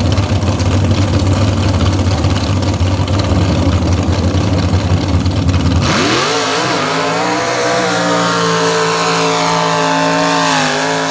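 A mud bog truck's engine idling with a heavy low rumble, then about six seconds in it revs sharply up as the truck launches and holds at high revs, cutting off abruptly at the end.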